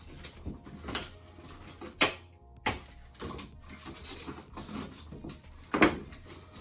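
Cardboard and plastic doll packaging being handled and opened: rustling broken by several sharp clacks, the loudest about two seconds in and again near the end.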